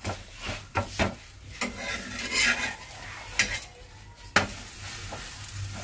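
Metal spatula scraping and clicking against a pan as a chapati is turned and lifted, with a few sharp metal knocks, the loudest a little past four seconds in. A brief sizzle of oil comes about two seconds in.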